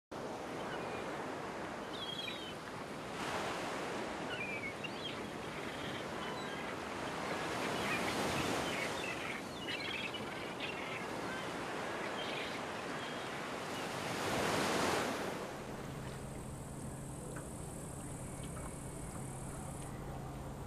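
Sea waves surging and breaking, with three louder swells and a few faint high chirps. About three-quarters of the way through the surf cuts off, and a quieter steady low hum with a thin high tone takes over.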